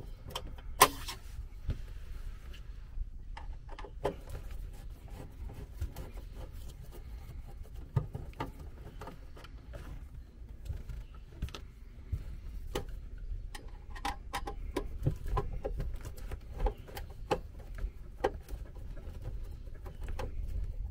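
Irregular small clicks, taps and light knocks from a screwdriver and hands working at an RV power converter's mounting screws and wiring, with one sharp click about a second in. A low steady hum runs underneath.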